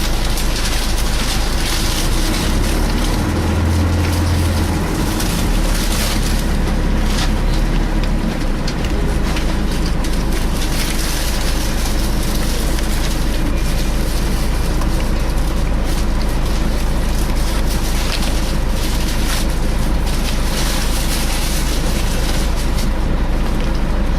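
Interior noise of a Scania L113 bus with an 11-litre straight-six diesel on the move: steady engine and road noise heard from inside the passenger cabin, with a faint constant whine. The low engine note shifts for a few seconds early in the stretch.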